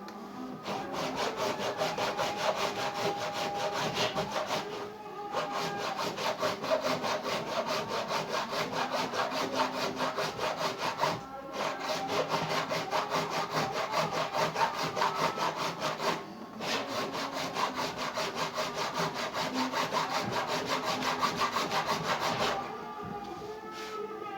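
A saw cutting through a washing machine's sealed plastic tub to split it open, in quick, steady back-and-forth strokes. It pauses briefly three times and stops shortly before the end.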